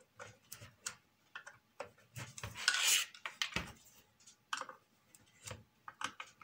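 Small metal hand tool clicking and scraping on the screws and acrylic mount of a model turntable as the screws are tightened, in short irregular ticks, with a louder rustle of handling about two and a half seconds in.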